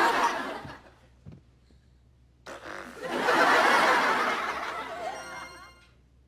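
Studio audience laughter, then a loud nose blow into a tissue with more laughter over it. A short computer notification chime sounds near the end.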